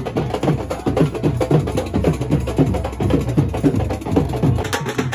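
Nashik dhol drums playing a fast, driving rhythm: deep strokes that drop in pitch, with crisp high stick strokes over them.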